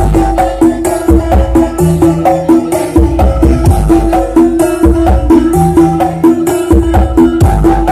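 Loud dance music with a steady beat and heavy, pulsing bass, played through a large carnival sound system.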